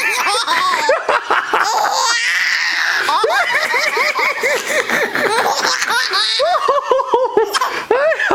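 Little girl in a long fit of high-pitched giggling, several short laughs a second, with a breathy stretch about two seconds in.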